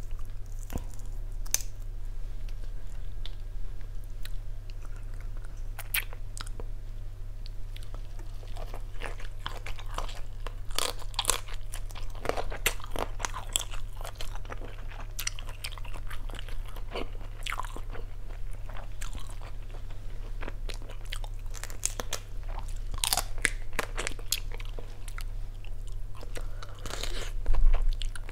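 A person chewing and biting grilled salt-and-chili shrimp close to the microphone, with irregular crisp crunches and wet mouth sounds. A loud bite comes near the end. A faint steady low hum runs underneath.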